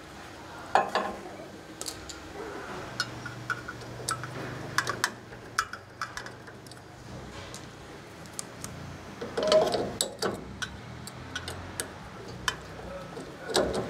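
Irregular small metallic clicks and ticks of an Allen wrench, screw and nut against the steel auger-motor mount of a pellet grill as the motor's mounting screw is reinstalled and tightened. There are a few louder knocks about a second in and around nine and a half seconds.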